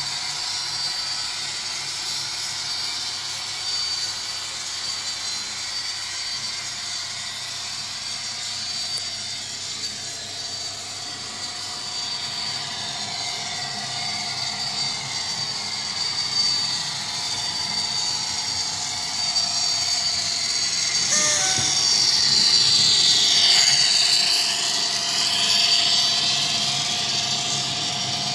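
Model trains running: a steady high-pitched whine with layered diesel engine sound from the Bachmann Class 57 locomotive's DCC sound decoder, played through its small onboard speaker. The sound swells and shifts in pitch for several seconds past the middle as the container train passes close.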